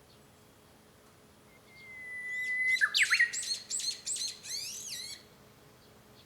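Japanese bush warbler (uguisu) singing: one long steady whistled note that swells in loudness, then a quick run of about eight sharp notes.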